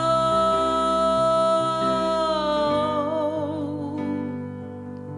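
Worship band music: a singer holds a long sung 'oh' over sustained instrumental chords. The note wavers and fades out about three seconds in, and the accompaniment carries on softly.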